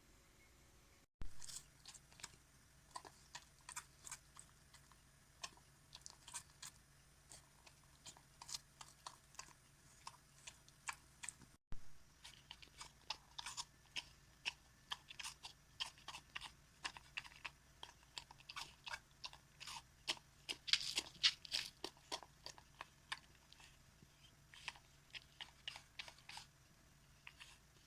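Senior miniature dachshund eating homemade food from a bowl: close, wet chewing with many quick mouth clicks, busiest about twenty seconds in.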